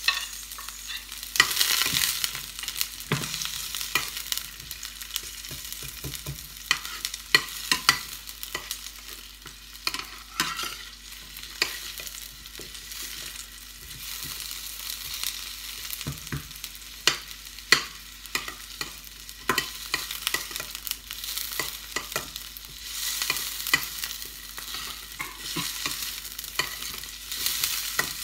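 Chopped onion and garlic sizzling in oil in a stainless steel frying pan, stirred with a metal spoon that clicks and scrapes against the pan again and again.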